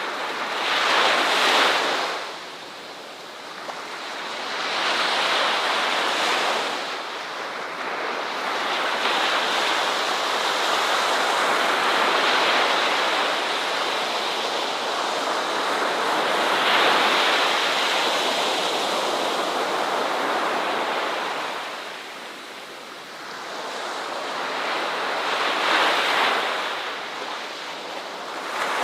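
Ocean waves washing onto a shore, a steady hiss that swells and fades in slow surges as each wave breaks and draws back, with a long sustained wash through the middle.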